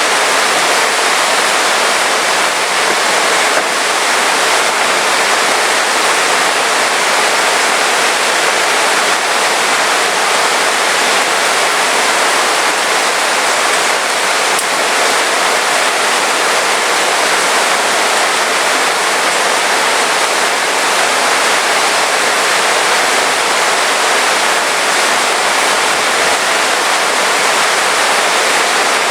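Heavy rain falling steadily in a dense, even hiss, with no thunder or other events.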